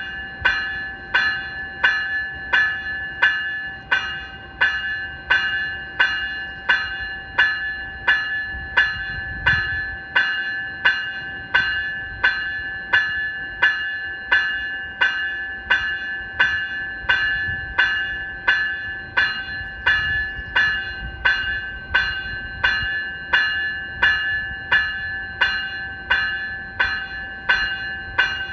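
Graham-White electronic bell (E-Bell) on an NCTD Coaster cab car ringing steadily, about three strikes every two seconds, each strike a sharp ding with a short ring. A faint low rumble from the standing train lies underneath.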